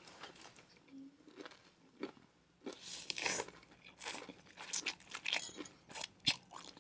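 Close-miked eating sounds: bites, crunching and chewing of noodles and chicken, in short irregular bursts that come thicker after about three seconds.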